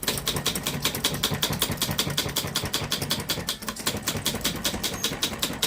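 Godrej Prima foolscap manual typewriter being typed on fast: a rapid, fairly even run of sharp key strikes with no pause.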